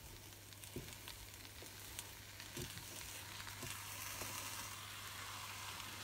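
Sugar and cooked semolina faintly sizzling in a hot nonstick pan as a metal spoon stirs them, with a few light taps and scrapes of the spoon against the pan.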